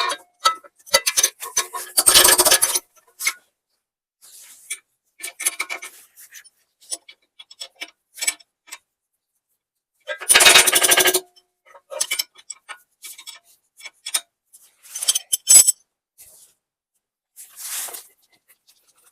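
Hand tools working on steel, a ratchet wrench tightening bolts on a tractor PTO shaft: two runs of rapid ratchet clicking about two and ten seconds in, with scattered clinks and scrapes of metal between.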